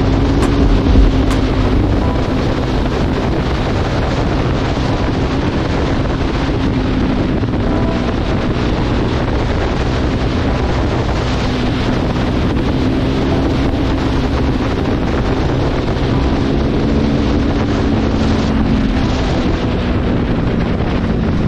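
Wind rushing over an action camera's microphone while riding a KTM Duke 390 at road speed, with the bike's single-cylinder engine droning steadily underneath.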